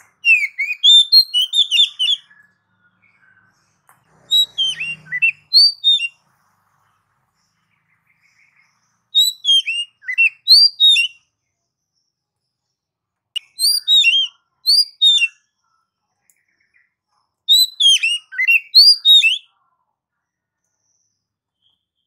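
Oriental magpie-robin (kacer) singing: five phrases of rapid, varied whistled notes, each about two seconds long, separated by pauses of two to three seconds.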